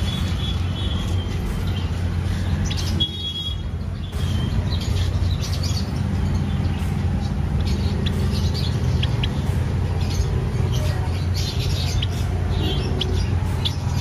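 Caged finches, Java sparrows among them, giving scattered short high chirps over a steady low rumble.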